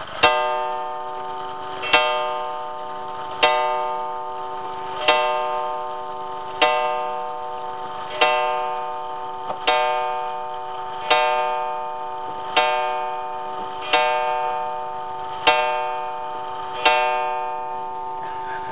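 1942 Seikosha spring-wound wall clock striking on its gong, loud: about a dozen evenly spaced strikes roughly a second and a half apart, each ringing on and fading until the next.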